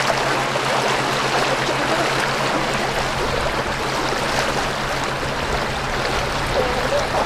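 Steady splashing and churning of shallow river water, stirred up by a hooked fish thrashing at the surface on a bottle-float line.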